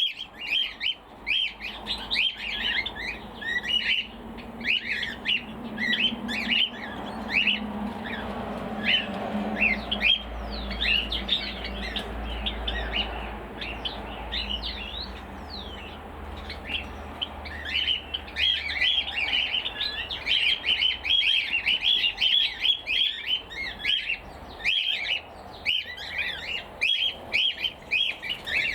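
Cockatiels squawking and calling over and over, a dense stream of short, sharp, high calls that thins a little midway and picks up again near the end.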